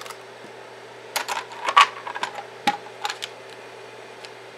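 Removable steel flex plate being lifted off a delta 3D printer's bed: a scattered series of sharp, light metallic clicks and taps as the plate comes free and is handled, over a faint steady hum.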